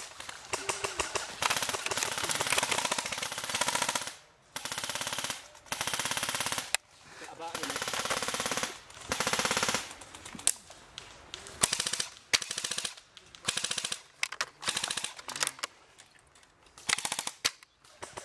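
Airsoft electric guns firing on full auto in rapid bursts. The longer bursts, one to two and a half seconds each, come in the first half; after that the bursts grow shorter, with a few single shots between them.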